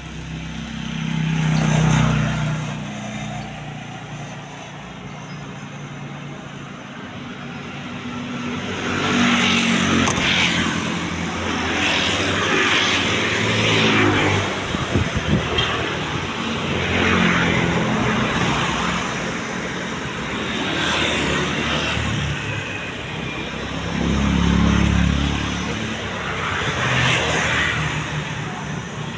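Motor vehicles passing on the street, their engine and road noise swelling and fading several times.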